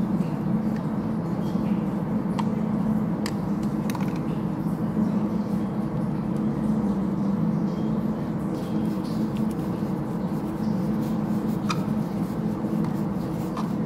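Steady mechanical hum of running machinery, with a few sharp clicks as a screwdriver tightens the cover onto an electric motor's terminal box.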